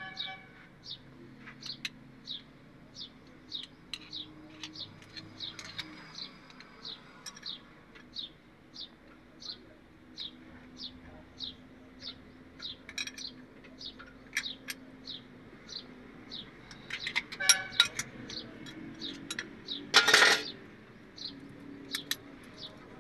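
A small bird chirping, one short high note about every two-thirds of a second. Over it, metal tools clink against the engine's rocker arms while the valve tappet clearance is set, with the loudest clinks about three-quarters of the way in.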